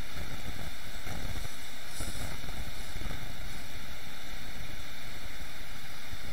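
A steady, even hiss of background noise with no speech over it.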